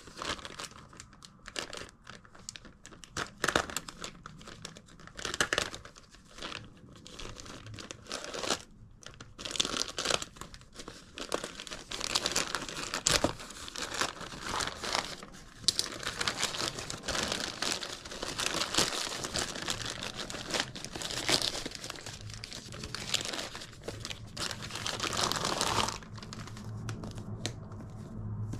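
Packaging of a smartphone gimbal being handled and opened: irregular crinkling and rustling with some tearing, stopping a couple of seconds before the end.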